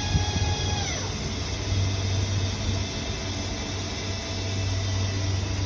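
High-speed spindle of a Makino MSA40 CNC milling machine whining, its pitch sliding sharply down about a second in as the spindle slows to a lower speed, then holding a fainter, lower whine over a steady machine hum.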